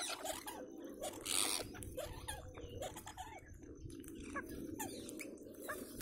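A feeding flock of rose-ringed parakeets giving short, squeaky chirps and calls on and off, with one harsher screech about a second and a half in, over a low steady background rumble.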